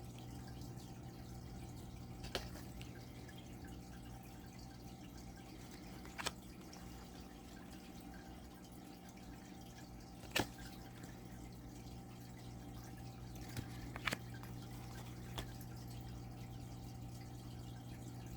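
Thick oracle cards being handled in a small room: a handful of soft, sharp taps or clicks a few seconds apart over a steady low electrical hum.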